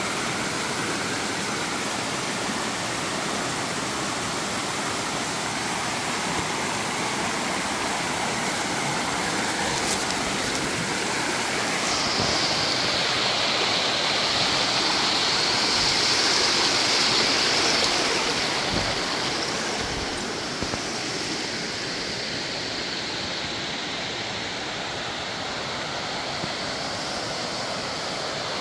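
Steady rushing water of a waterfall. A higher hiss grows stronger for several seconds in the middle.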